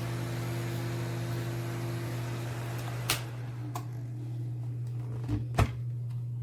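Small plug-in electric space heater running with a steady fan hum. A sharp click about three seconds in, after which the higher part of the hum drops away, then two soft knocks a little later.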